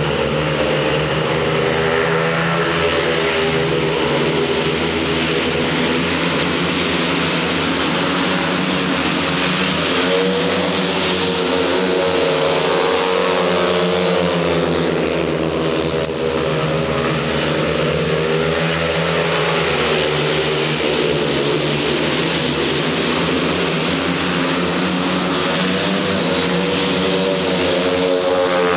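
Several speedway bikes' 500 cc single-cylinder methanol engines racing round a dirt track together, their engine notes rising and falling in pitch as the bikes accelerate and sweep through the bends.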